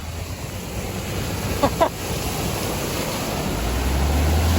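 Wind noise on the microphone over a vehicle engine's low rumble, which grows louder near the end; a brief high voice-like sound comes twice about a second and a half in.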